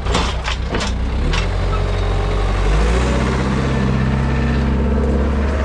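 Skid steer's diesel engine running, with a few sharp knocks in the first second; nearly three seconds in the engine speeds up and then holds steady at the higher speed.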